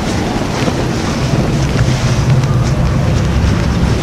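Storm wind buffeting the microphone aboard a motorboat, over the low, steady running of its engine.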